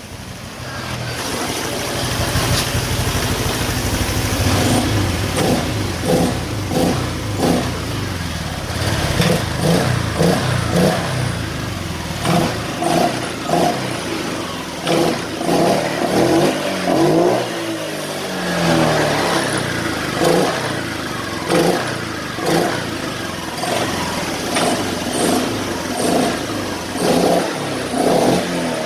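Honda Vario Techno 125 fuel-injected scooter engine running and being blipped on the throttle over and over in quick, short revs. The engine picks up at once with no bogging or rough snoring on opening the throttle, the sign that its replaced fuel-pump rotor now gives proper fuel pressure.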